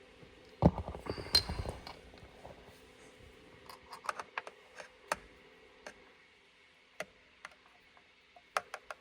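Small hand tool working a Torx T20 screw out of a steering-wheel trim piece: a short clatter of metal knocks about a second in, then scattered light clicks and taps.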